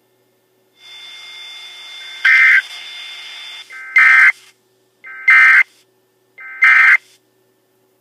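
Four short bursts of Emergency Alert System data tones from a Sage EAS Endec, each under half a second and about 1.4 seconds apart: the end-of-message (EOM) signal that closes an alert. A steady hiss with faint high tones runs under the first burst.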